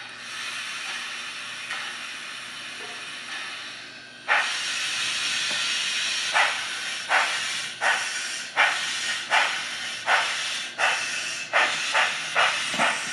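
Digital steam sound from a model locomotive's WOW Sound decoder, played through its small speaker: a steady steam hiss, then about four seconds in a louder burst of steam and a run of exhaust chuffs that speed up as the engine gets under way.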